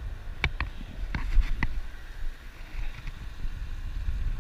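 Wind buffeting the microphone in a steady low rumble, with several sharp clicks in the first two seconds from handling a fishing rod and spinning reel.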